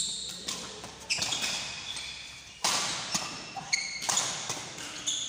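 Badminton rackets striking a shuttlecock in a fast rally: about four sharp hits, roughly a second and a half apart, each echoing in a large hall. Short high squeaks from court shoes on the wooden sports floor come between the hits.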